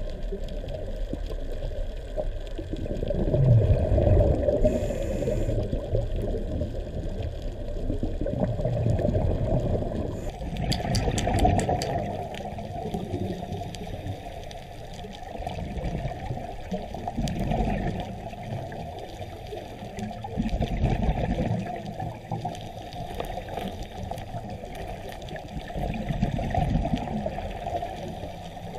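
Muffled underwater sound picked up by a camera in its housing: a low churning water noise that swells and fades every few seconds. The sound changes abruptly about ten seconds in.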